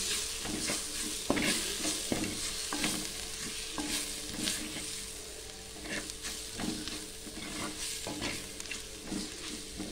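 Spatula stirring and scraping a thick onion, garlic and tomato masala in a metal pan, with irregular scrapes and knocks over a steady sizzle of frying. The sound is the masala powders being sautéed with a little water.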